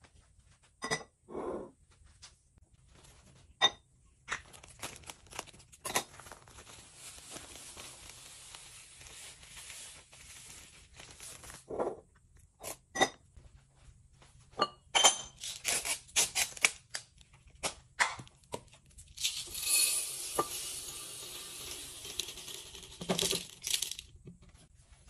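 Glass canister jars being handled and filled: lids clinking and knocking against the glass, a soft pouring rush in the middle, then a louder, hissing pour of purple scent beads tipped from a bottle into a glass jar, ending about two seconds before the end.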